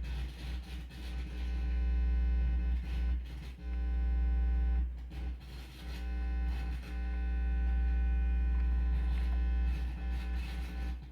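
Electrical hum and buzz through a sound system's speakers, caused by an RCA-to-P2 male cable plugged into the auxiliary audio input. The hum swells and dips several times and cuts off sharply at the very end.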